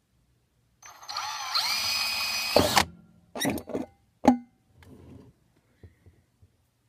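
Cordless drill spinning up with a rising whine and running for about two seconds as a thin bit bores into the metal lid of a mason jar, then stopping abruptly. A few short knocks and one sharp click follow.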